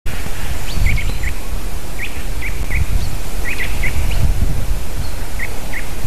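Wind rumbling in gusts on an outdoor microphone, with about a dozen short chirping calls from small birds in loose groups.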